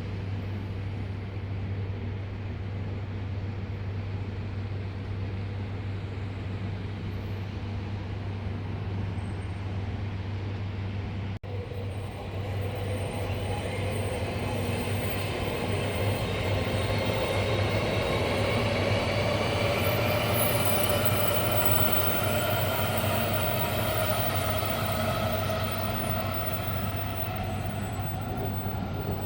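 Shinkansen bullet train at the station: a steady low hum at first, then from about 12 s in a multi-tone electric motor whine that rises in pitch as the train accelerates, loudest around the middle.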